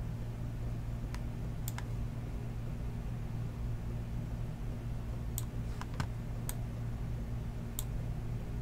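A few scattered key presses on a computer keyboard, about eight sharp clicks spread unevenly and some in quick pairs, over a steady low hum.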